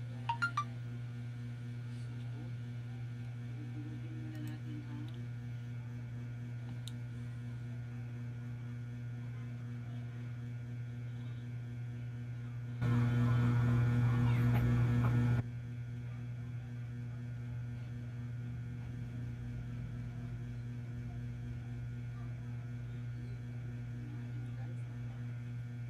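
A steady low electrical hum, with a sudden louder stretch of noise lasting about two and a half seconds around the middle.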